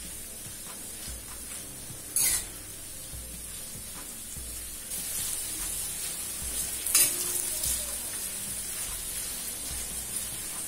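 Marinated boneless chicken pieces sizzling in oil on a flat iron tawa as they are sautéed over low to medium heat. A metal spatula stirs and turns them, scraping against the pan twice, about two seconds in and again about seven seconds in.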